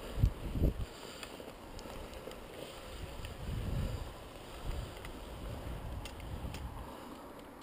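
Wind buffeting the microphone in low gusts that swell and fade, with bracken fronds brushing and rustling as someone wades through them. There are two soft thumps in the first second.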